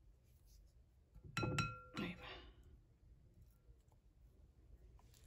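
A glass mixing bowl clinks once as a utensil strikes it, about a second and a half in, and rings briefly in a few clear tones; a softer knock follows half a second later.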